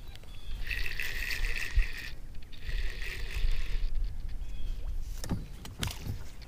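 Spinning reel being cranked in two spells of about a second and a half each, its gears whirring. Near the end, a hooked fish splashes and thrashes at the water's surface beside the boat.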